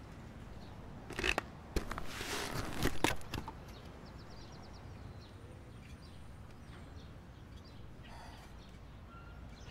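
Coin-operated rocket ride clicking and clunking, with a short hissing rush about two seconds in. It goes quiet after, apart from a faint run of quick ticks.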